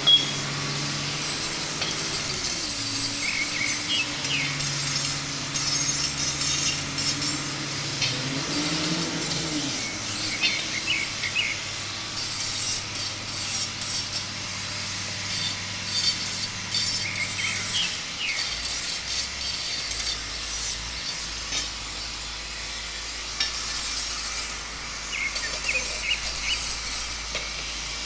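Electric angle grinder grinding a steel pipe in uneven passes, a hissing scrape of disc on metal that swells and eases.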